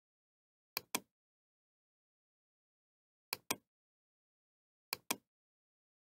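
Computer mouse clicking: three quick pairs of sharp clicks, about a second in, past three seconds and near five seconds, with dead silence between.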